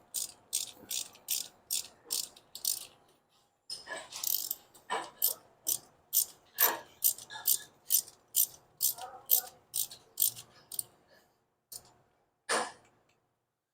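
Socket ratchet clicking in runs of sharp, evenly spaced clicks, about three a second, while parts are fastened back after a spark plug change. The clicking pauses briefly around three seconds in, resumes, and ends with one louder click near the end.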